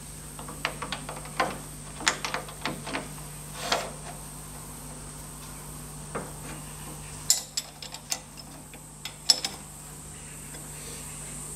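Irregular metal clinks and knocks as a steel roller filing rest is set onto a lathe's compound slide and its hex bolt is tightened with a ring spanner. A steady low hum runs underneath and stops about seven seconds in.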